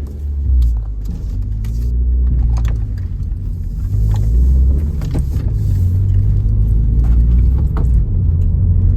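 2011 Mazda2's four-cylinder engine running through a new aftermarket exhaust while the car is driven, a loud low rumble that dips a couple of times and then climbs again. A few light clicks sound over it.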